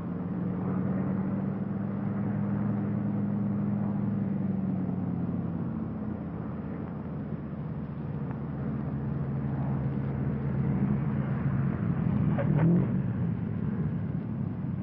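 P-38 Lightning's piston engines droning steadily, the pitch dropping about five seconds in. A short higher-pitched sound rises over the drone about twelve seconds in.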